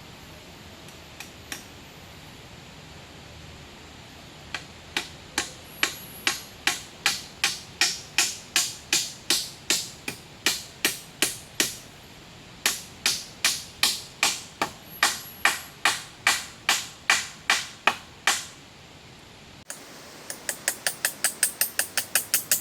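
Hand tool striking wood over and over in a steady rhythm of about two to three sharp blows a second. After a short pause near the end the blows come faster, about four a second. A steady hiss lies underneath.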